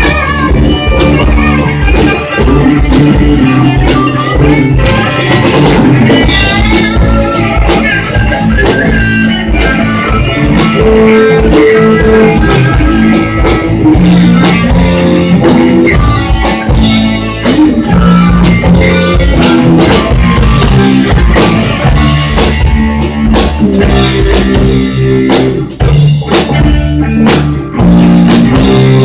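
Rock band playing live, with guitar over a drum kit in a bluesy rock song.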